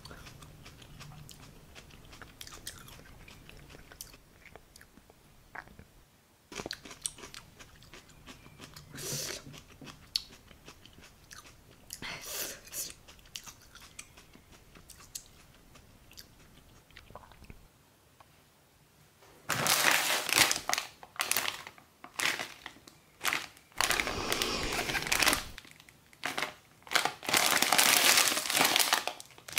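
Plastic wrapper of a Korean hot chicken fire-noodle packet crinkling and crackling loudly in the hands, in bursts through the last third. Before that, soft crunching and chewing.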